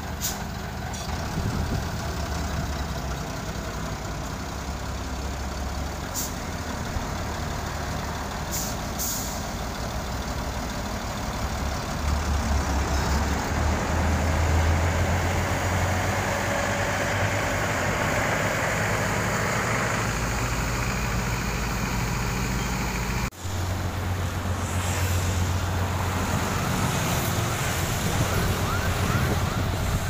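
Diesel engine of a Sakai TS150 pneumatic-tyre road roller running steadily close by as it compacts fresh asphalt. It grows louder about twelve seconds in and breaks off for an instant a little past two-thirds of the way through, then carries on.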